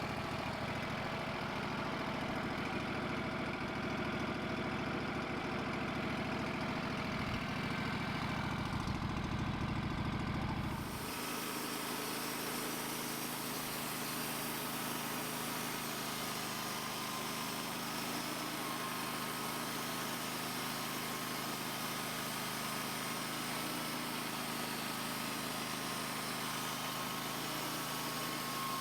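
Portable band sawmill's engine running steadily. About eleven seconds in the sound changes abruptly: the low rumble drops away and a steady high whine with a hiss takes over.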